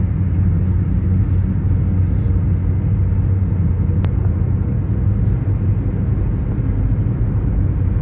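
Steady low rumble of a car driving at speed on a highway: road and wind noise heard from inside the car.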